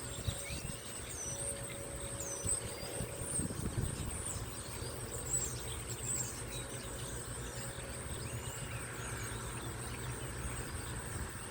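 Birds chirping, many short calls that rise and fall, over a steady high-pitched insect buzz and a low steady hum.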